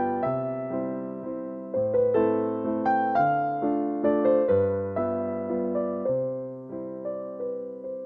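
Background music: electric piano playing a slow, gentle melody in repeated phrases, with notes struck and left to fade.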